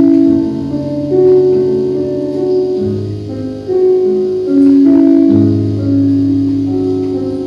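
Solo piano playing slow sustained chords, with deep bass notes struck about three seconds in and again about five and a half seconds in.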